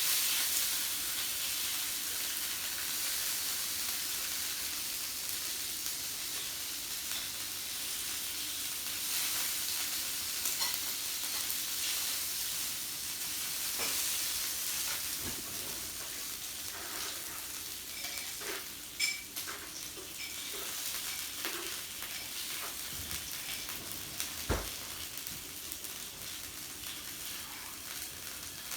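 Meat sizzling on a yakiniku grill: a steady frying hiss, with a few sharp clicks about two-thirds of the way through.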